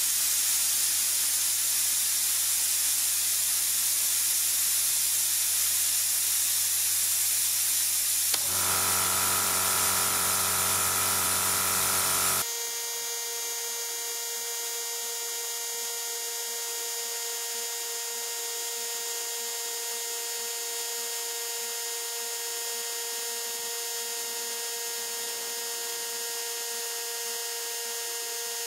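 Compressed-air blow gun blasting at maximum pressure: a continuous loud hiss over a low hum. About eight seconds in, a steady tone joins. About twelve seconds in, the low hum drops away and the hiss carries on a little quieter with steady tones.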